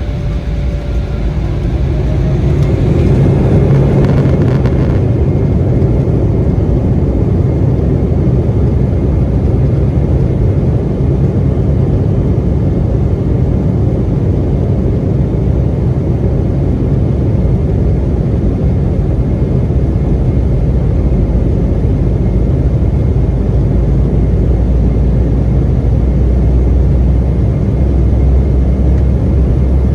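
Embraer 175 jet heard from inside the cabin as its engines spool up for takeoff: a rising whine and the level climbing over the first few seconds, then a steady roar. A deeper rumble grows stronger about two thirds of the way through.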